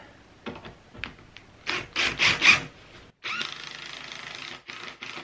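DeWalt cordless drill driving screws into plywood. It gives a few short trigger bursts, each rising in pitch, then about a second and a half of steady running as a screw is sunk.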